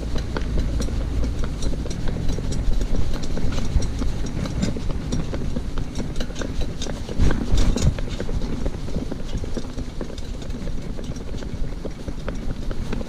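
Shetland pony's hooves clip-clopping on a tarmac road as it pulls a cart, over a steady low rumble from the cart's wheels.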